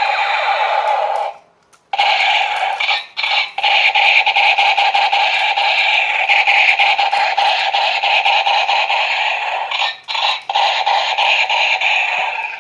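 Battery-powered toy gun firing its electronic automatic-fire sound effect through a small tinny speaker: a fast, continuous buzzing rattle of clicks that breaks off briefly about one and a half seconds in and dips twice more before running on.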